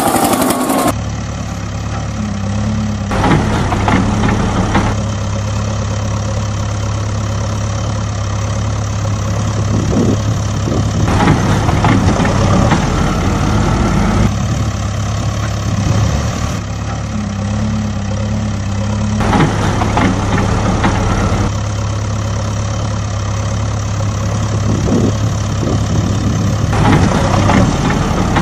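Added sound effect of a heavy vehicle's engine idling steadily, with louder swells every few seconds.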